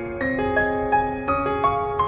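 Gentle background music: a piano or keyboard melody of soft, ringing notes.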